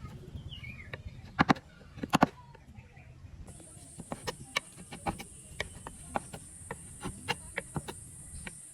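Hand work on wood: a few loud knocks in pairs, then a quicker run of lighter, sharp taps at about three a second, with a steady high hiss joining partway through.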